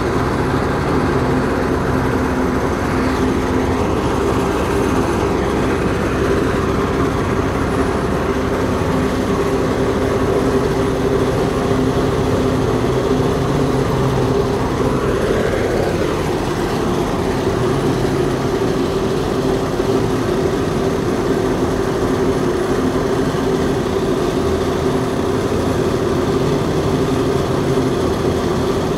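Heavy machinery engine running steadily for tree removal work, with a brief rise in pitch about fifteen seconds in.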